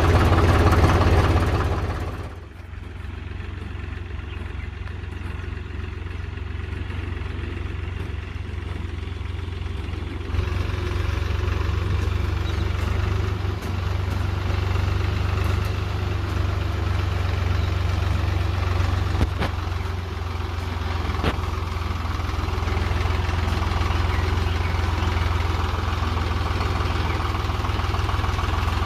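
Swaraj 735 tractor's three-cylinder diesel engine running with a steady low hum. It is loud close up for the first two seconds, drops sharply, then slowly grows louder as the tractor drives toward the listener.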